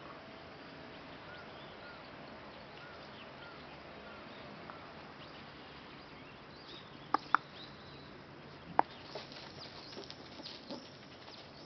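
A Shiba Inu puppy moving about on gravel, with light crunching of the stones in the second half. Faint high chirps come in the first half, and three sharp short snaps past the middle: two close together, then one more about a second and a half later.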